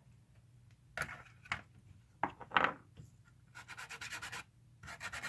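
Paste flux being worked over the pins of an old circuit board: soft rubbing and scratching strokes, with a quick run of short, even strokes in the middle.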